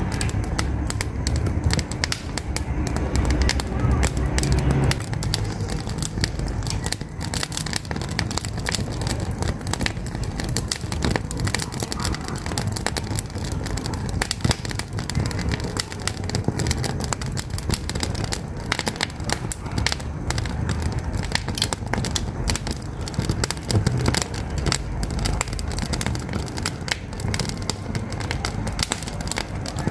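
Wood fire burning in a wood-burning stove, crackling with dense, irregular snaps and pops over a low rumble of the flames.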